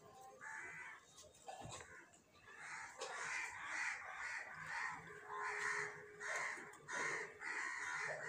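Crows cawing: a couple of calls early on, then from about three seconds in a steady run of harsh caws about two or three a second.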